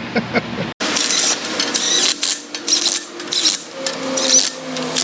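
Small power tool running in several short bursts with a rapid mechanical rattle, after a brief dropout about a second in.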